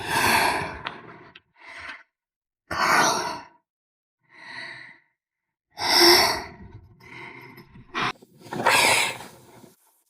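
A person sighing and breathing heavily: about six breathy exhalations, the loudest near the start and about six seconds in.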